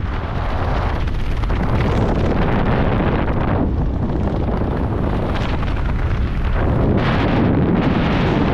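Wind buffeting the camera microphone during descent under an open parachute canopy: a loud, deep rush of air that surges and eases in gusts every second or two.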